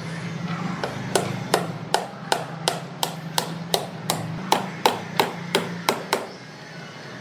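A hand hammer striking repeatedly in a steady rhythm: about fifteen blows, close to three a second, stopping about six seconds in, over a steady low hum.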